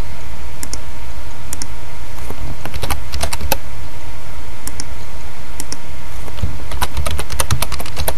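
Computer keyboard typing in short irregular bursts, with a cluster about three seconds in and a longer run near the end, over a steady low hum.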